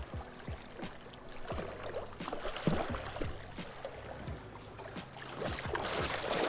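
Lake water lapping and splashing at a gravel shoreline, with scattered sharp clicks and knocks. Near the end, a striped bass splashes and thrashes in the shallows as it is dragged ashore.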